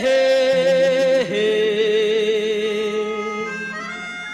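Hindi film song: a man sings long held notes with vibrato, stepping down in pitch twice, over a steady instrumental accompaniment.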